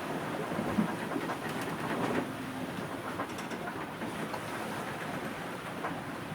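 Steady rushing noise aboard a sailing yacht under way, with a few short clicks and knocks about a second and two seconds in.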